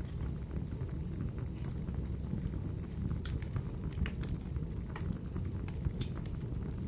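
Wood fire burning: a steady low rumble of the flames with scattered sharp crackles and pops, several of them close together in the middle.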